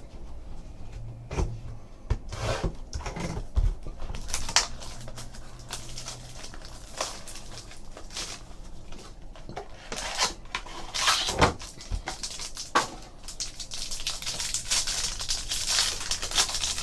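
Trading cards and pack wrapping being handled on a table: scattered taps and clicks, with rustling and crinkling that gets busier near the end as the next pack is opened.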